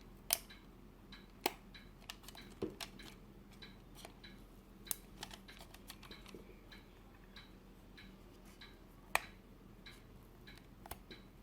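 Faint, irregular clicks and taps of small parts of an Olympus 40-150mm zoom lens being handled and worked loose during disassembly, about a dozen sharp clicks spread unevenly.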